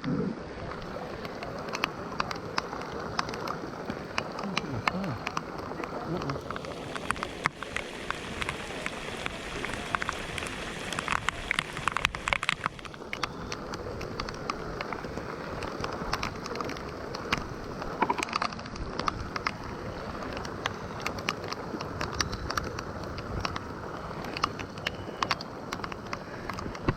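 Steady patter of rain, with faint indistinct voices in the background.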